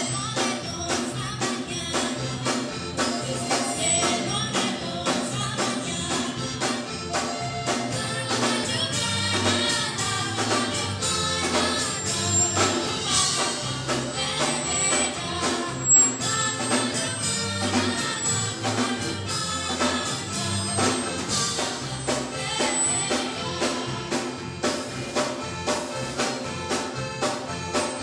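Live band music with a steady beat: two women singing into microphones over a small band with saxophones and guitars.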